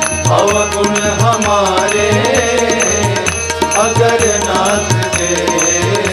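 Instrumental interlude of a Hindi devotional bhajan: a melody line with ornamented glides over a steady drum beat of about two strokes a second.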